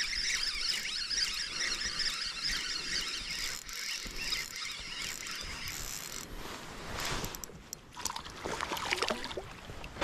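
Spinning reel being cranked as a small bass is reeled in on a bent rod, a steady whirring for about six seconds. Then a few seconds of sharp splashes and rustling as the fish reaches the surface beside the kayak.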